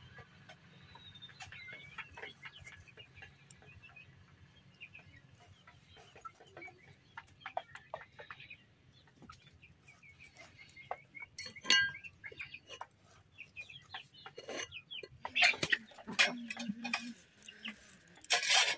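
Farm animals calling, loudest near the end, over short clicks and scrapes of raw mutton being cut on a curved, fixed hand blade.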